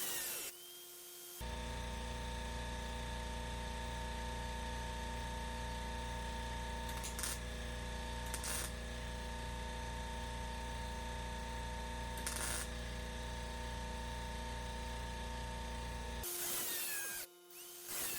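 Electric cutoff grinder running at steady speed on sheet metal for about fifteen seconds, with a few short clicks along the way, then switched off.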